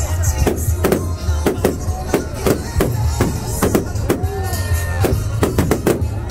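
Loud music with a steady, fast drum beat, about three beats a second, over a heavy bass, with a voice singing briefly in the middle.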